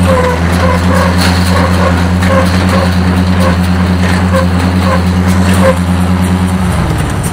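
Tractor engine running steadily under power-take-off load, driving a small square baler, with a light chirp repeating about twice a second. About six and a half seconds in the engine drops in pitch and loudness as it is throttled back.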